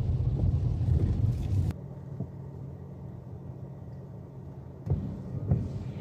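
Dacia Duster heard from inside the cabin on a wet road: a low rumble of tyres and engine. About two seconds in it drops suddenly to a quieter steady hum, with a couple of short louder swells near the end.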